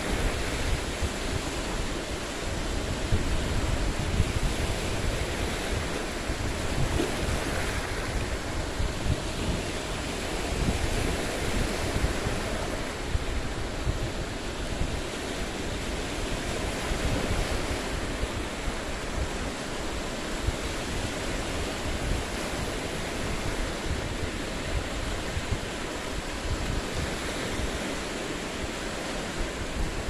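Small lake waves breaking and washing over a boulder shoreline: a steady rushing wash that swells and eases every few seconds. Wind noise on the microphone adds a low, gusty rumble underneath.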